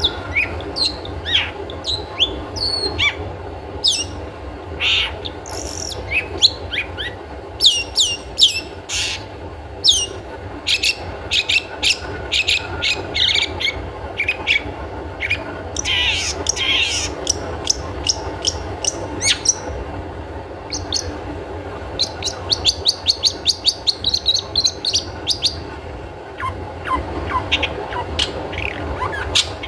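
Long-tailed shrike (cendet) giving its 'toet toet' calls: a string of sharp, downward-sliding notes, with a fast run of short repeated notes about two-thirds of the way through, over a steady low hum.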